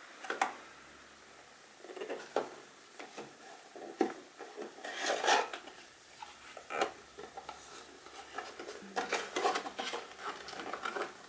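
Cardboard box being opened by hand: flaps lifted and folded back, with irregular rubbing and scraping of cardboard and a few sharp taps. It is loudest about four to five seconds in and again in a busy stretch near the end.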